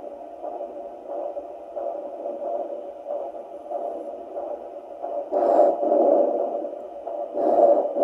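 Handheld fetal Doppler's loudspeaker playing the user's own heartbeat as rhythmic whooshing pulses, around 90 a minute, slow enough to be the adult's pulse rather than a fetal heartbeat. Two louder, longer whooshes come in the second half.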